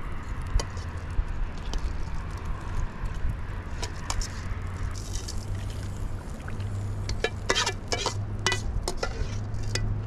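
Metal spoon and ladle clinking and scraping against a steel bowl and a steel cooking pot while stirring. A run of sharp clinks comes in the last few seconds, over a low steady rumble.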